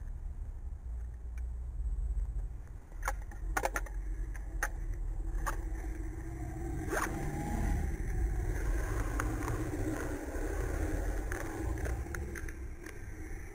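Close rustling and clicking of a jacket and bag being handled against a body-worn camera: a run of sharp clicks a few seconds in, then a longer swell of rustling. Road traffic runs underneath as a low steady rumble.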